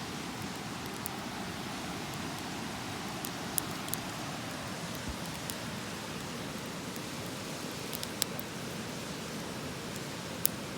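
Steady rush of a river with a campfire crackling: a few sharp pops of burning wood scattered over the water noise, the loudest near the end.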